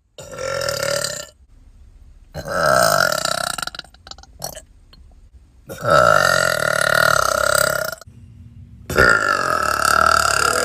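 A series of four long, loud burps from a girl, each drawn out for one to two seconds with short pauses between; the third is the longest.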